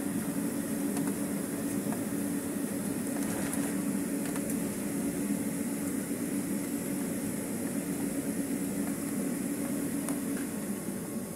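Steady cabin noise of a jet airliner taxiing after landing: the engines at low taxi power and the cabin air give a constant low drone with a hiss over it.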